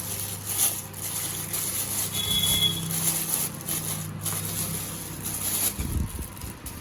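Plastic camera packaging rustling and crinkling as the camera body is unwrapped, over a steady low hum that stops near the end.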